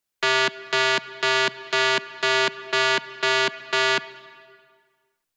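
Electronic buzzer-like alarm sound effect: eight identical buzzing beeps, about two a second, over a softer held tone, then fading out over about a second.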